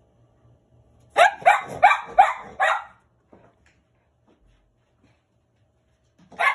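Cavalier King Charles Spaniel barking: a quick run of five sharp barks about a second in, then a single bark near the end.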